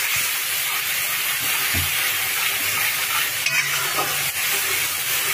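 Yogurt-and-spice masala sizzling in hot oil in a wok as a spatula stirs it: a steady frying hiss with a few light spatula scrapes about three and a half seconds in. The masala is being fried until the oil separates from it.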